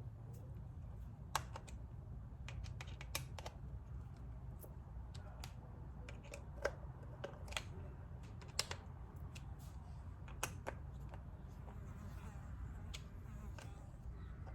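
Irregular small metallic clicks and ticks of a screwdriver working the float bowl screws on an outboard carburetor, over a steady low hum.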